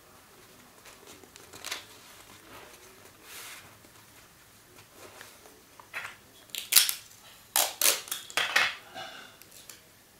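Paper rustling and crinkling in short bursts as a rolled paper tube is handled, with a run of louder crinkles in the second half.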